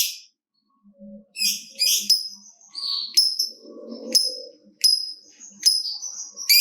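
Lovebird (Agapornis) giving its clicky 'typing' call: a run of sharp, high-pitched chirps and short harsh calls, some with a brief whistled tail, coming irregularly every half second or so.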